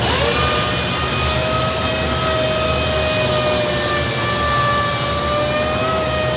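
Sanding robot's disc sander starting up, winding up briefly to a steady high whine over a hiss as it sands a cabinet door, with a steady low rumble underneath.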